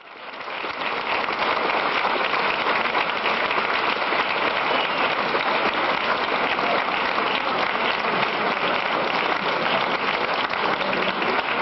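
Audience applause, a dense steady clatter of many hands clapping, fading in over the first second.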